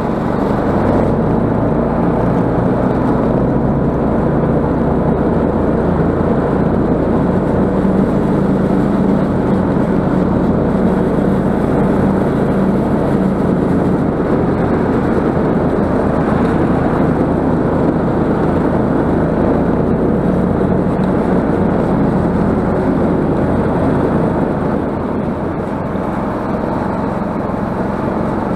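Snowmobile engine running steadily under way, its pitch holding level, easing off slightly near the end.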